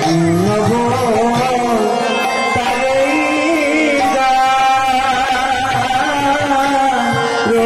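Indian devotional music: a melody that glides between notes over held, sustained tones.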